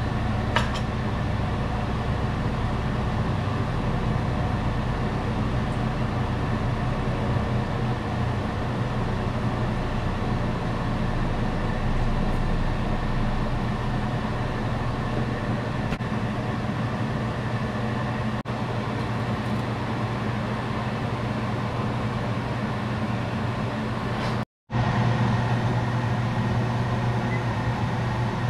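Steady mechanical hum with a low drone, as from a running appliance or motor, broken once by a brief dropout to silence near the end.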